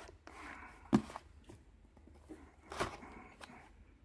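A package being opened by hand: rustling and handling of the wrapping, with a sharp knock about a second in and another near three seconds.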